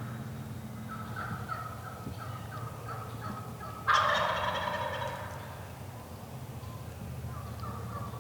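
A run of short turkey yelps, then a wild turkey gobbler gobbles loudly about four seconds in, a rattling call that fades over about a second; a few more yelps come near the end.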